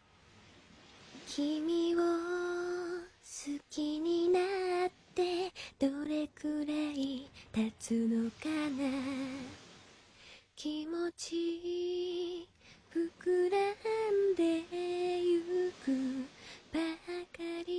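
A young woman singing a slow Japanese love song unaccompanied, in short phrases with pauses between them and a wavering vibrato on the held notes.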